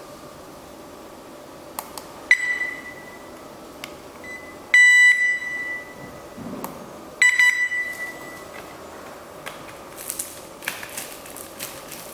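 Wireless alarm system units beeping while the Tutti siren is being paired to the control panel: three beeps a couple of seconds apart, the middle one the longest and loudest, each fading out. A few light clicks come before and after them.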